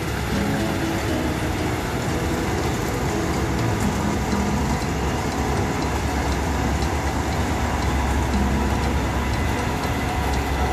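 Combine harvester running while harvesting soybeans: a loud, steady drone of engine and threshing machinery that grows heavier in the low end over the second half as the machine comes close.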